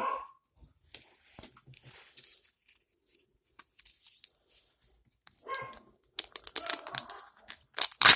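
Kinder Joy's foil wrapper crinkling and tearing as it is unwrapped by hand. Sparse crackles turn into dense crackling in the last couple of seconds, loudest near the end.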